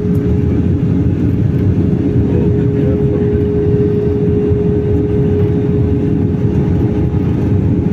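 Airliner cabin noise: the steady low rumble of the jet engines and airflow, with a thin steady hum running through it.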